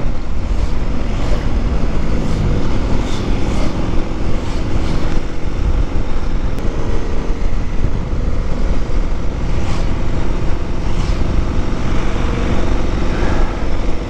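Motorcycle engine running steadily while riding at road speed, under a heavy rush of wind on the bike-mounted microphone.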